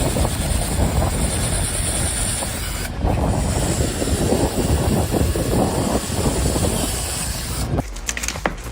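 Heavy machinery running: a loud, steady rumble with hiss. It breaks off briefly about three seconds in and gives way to sharp clicks near the end.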